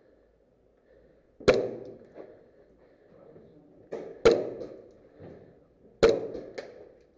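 Three single airsoft pistol shots a couple of seconds apart, each sharp and dying away over about half a second, with a softer click just before the second and just after the third.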